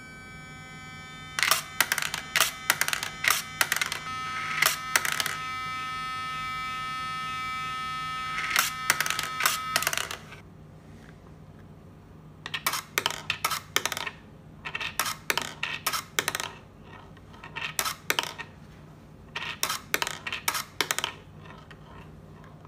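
Motor-driven kinetic-art perpetual-motion toy running, its motor whining steadily while the metal ball clicks and clatters along the wire track and bowl; the whine cuts off about ten seconds in. After that, the electromagnetic-drive version runs without any motor whine, leaving only bursts of rapid metallic clicking from the rolling ball.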